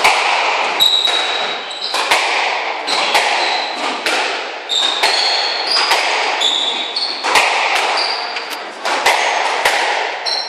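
Squash rally: the ball smacking off rackets and the court walls about once or twice a second, each hit ringing briefly, with sneakers squeaking on the wooden floor between hits.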